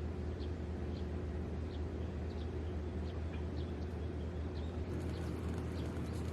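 Short high bird chirps repeated every half second or so, over a steady low hum.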